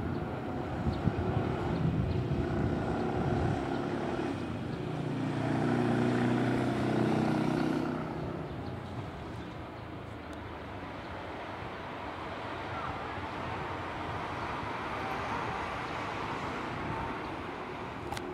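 Outdoor suburban street ambience with a motor vehicle's engine passing, loudest about six to seven seconds in and then fading into a steady, quieter background hum.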